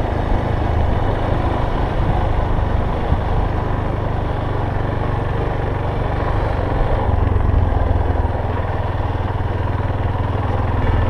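Yamaha Ténéré 250 motorcycle's single-cylinder engine running steadily.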